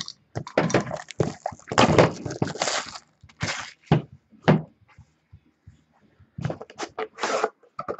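A sealed cardboard box of trading cards being ripped open by hand: wrapping and cardboard crackling, tearing and knocking in irregular bursts with short pauses between them.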